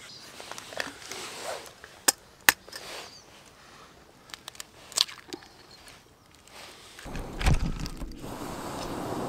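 Sharp clicks and taps of food preparation in a small steel mess tin, with eggs cracked against its rim. About seven seconds in comes a low thump and rumble, then a steady soft hiss.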